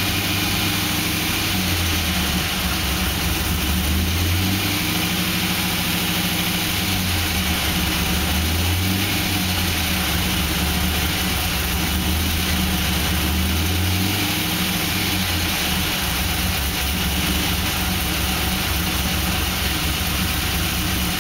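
2006 Pontiac GTO's 6.0 L LS2 V8 idling steadily, with an engine noise that the owner suspects may be piston slap or something more serious.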